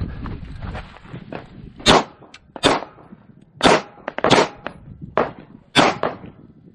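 Beretta 92G 9mm pistol firing a string of about six single shots, each a sharp crack with a short echo, spaced roughly half a second to a second apart.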